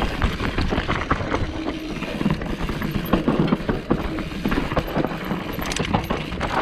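Downhill mountain bike rattling over a rough trail at speed: a continuous clatter of knocks from the chain, frame and tyres.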